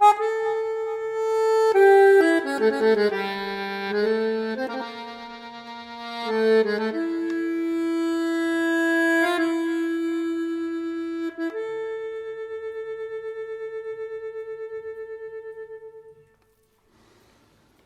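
Solo instrumental music: a slow melody of long held notes, the last one pulsing evenly and fading out about sixteen seconds in.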